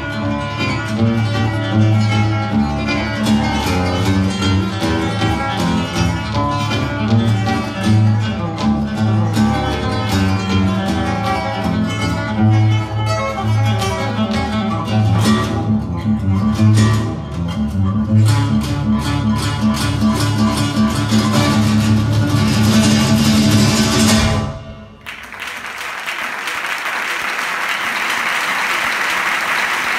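Solo classical guitar playing a fast, rhythmic piece that ends abruptly about three-quarters of the way through. Audience applause follows and continues.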